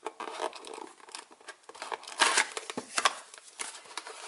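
Small cardboard product box being opened by hand: the seal torn and the flap pulled open, with irregular tearing, crinkling and scraping of card and paper and a few sharp clicks, loudest a little past two seconds in.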